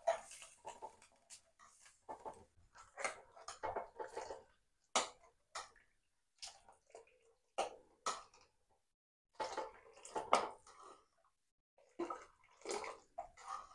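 Steel ladle stirring thin buttermilk kadhi in an aluminium kadai: faint, scattered short sloshes, drips and light scrapes as the liquid is lifted and poured back.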